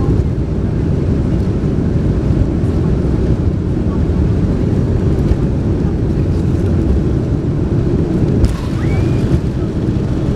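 Steady roar of jet engines and airflow inside the passenger cabin of a Boeing 747-436 climbing after takeoff.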